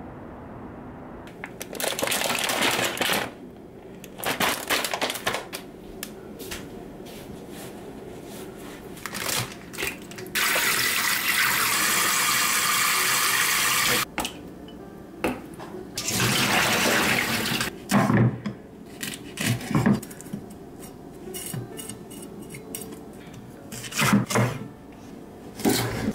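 Kitchen tap running in stretches, water rushing into a sink, with a few sharp knocks in between.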